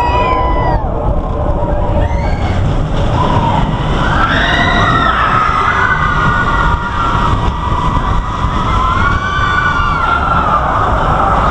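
Riders screaming on the Expedition Everest roller coaster as the train runs backward from the broken track into the dark mountain. There is one long wavering scream about four seconds in and another near nine seconds, over the loud steady rumble of the train and wind on the microphone.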